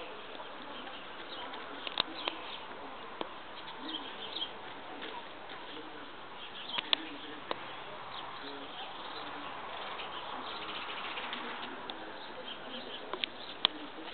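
Outdoor background with birds calling, broken by a few sharp clicks and taps scattered through it.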